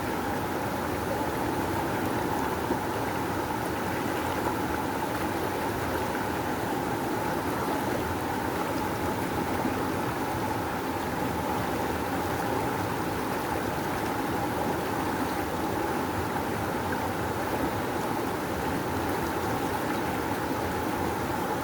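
Rushing river water flowing strongly, a steady, even rush with no breaks.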